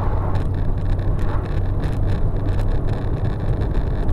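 Dashcam in a moving car picking up steady low road and vibration rumble at highway speed. There is a brief whoosh at the start as an oncoming flatbed truck passes.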